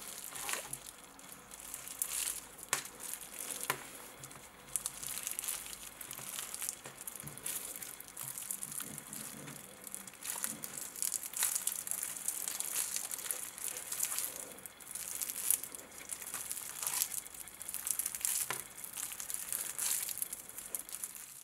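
Hands squeezing and kneading balloon stress balls filled with Orbeez water beads and glitter: an uneven squishing and crinkling with many small crackles.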